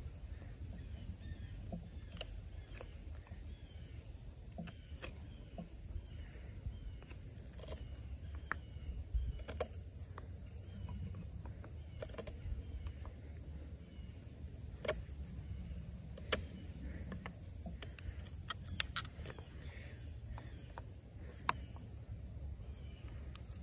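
A steady high insect drone, with scattered sharp clicks and cracks of a large fixed-blade knife, an Extrema Ratio Tuscan, cutting a notch into a stick of wood.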